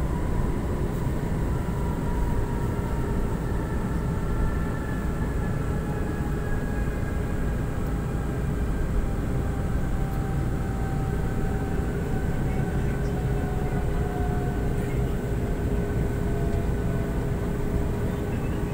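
MRT-3 light-rail train running, heard from inside the car: a steady rumble with faint whining tones that drift slowly lower in pitch.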